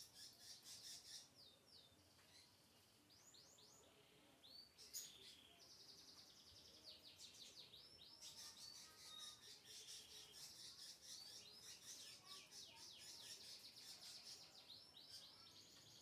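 Lovebird chattering: faint, rapid high chirps and short down-sweeping notes in long fast runs, sparse for a couple of seconds early on, then near-continuous from about five seconds in.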